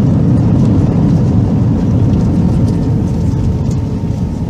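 Cabin noise of an airliner rolling down the runway just after touchdown with its spoilers up: a loud, deep roar of engines and rushing air that slowly eases as the aircraft slows.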